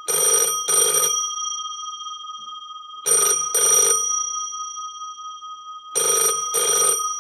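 Old telephone bell ringing in double rings, three pairs about three seconds apart, with the bell tone ringing on between them.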